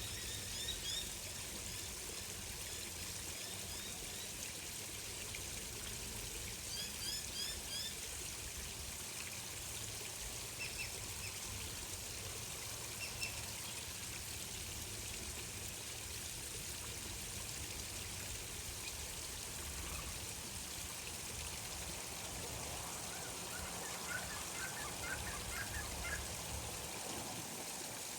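Water trickling steadily, with scattered short bird chirps: quick series of high chirps about a second in and again around seven seconds, and a rapid run of notes near the end.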